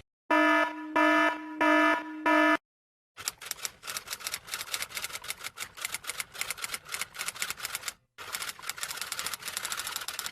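Four short electronic alarm beeps, evenly spaced, then after a brief pause a long run of rapid typing clicks that stops briefly about eight seconds in and resumes.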